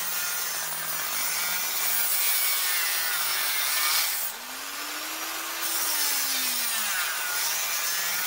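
Dremel rotary tool with a slitting-saw disc grinding through stainless steel, a steady high, gritty cutting noise. The motor tone rises and falls back about halfway through as the load on the disc eases and returns.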